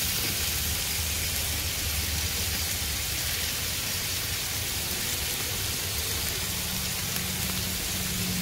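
Burger patties sizzling on a Blackstone steel griddle: a steady frying hiss with a low hum underneath.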